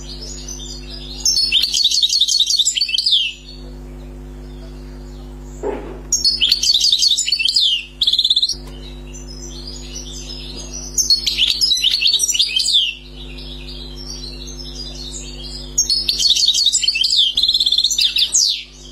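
Caged European goldfinch singing four bouts of rapid, high twittering song, each about two seconds long, in the phrases Algerian fanciers call tebnaj. A steady low hum runs underneath.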